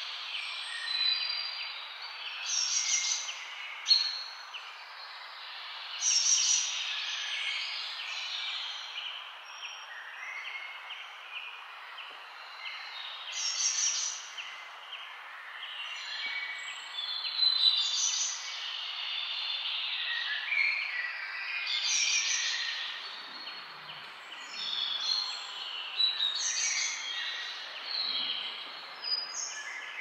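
A mixed chorus of birds chirping and calling, in bursts that come and go every few seconds, over a steady hiss.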